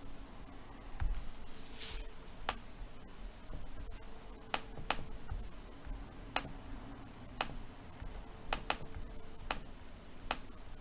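Computer mouse buttons clicking, about nine separate sharp clicks at irregular intervals, over a faint room hum.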